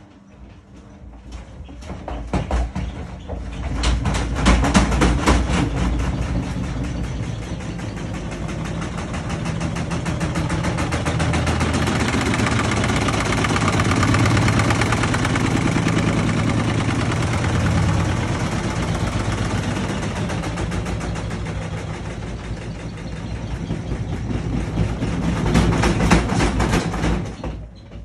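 Siemens washing machine's inverter motor spinning the laundry-filled drum, here turning the reversed way. It builds up with heavy rattling about two seconds in, settles into a steady hum and whir, rattles hard again near the end, then cuts off suddenly.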